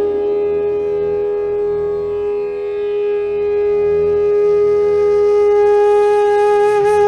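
A conch shell (shankh) blown in one long steady note, bending down in pitch at the very end.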